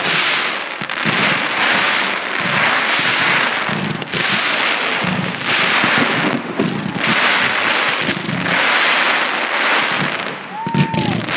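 Fireworks display: a dense, continuous crackle of many glittering crackle shells going off together, swelling and easing about once a second, with a sharp report near the end.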